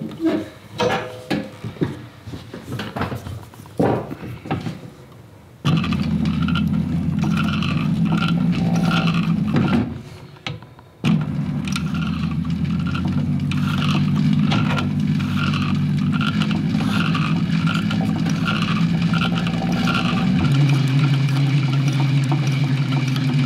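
Techsew 2750 Pro cylinder-arm leather sewing machine, driven by its servo motor, stitching leather at a slow pace: a steady motor hum with a regular clack of about two stitches a second. Light clicks and knocks come first, the stitching starts about five seconds in, stops briefly about ten seconds in, then runs on.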